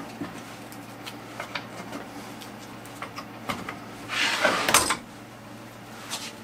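A wooden panel being handled and set down on a wooden cabinet: a few light knocks and taps, then a louder scrape of the board sliding against wood about four seconds in, lasting under a second.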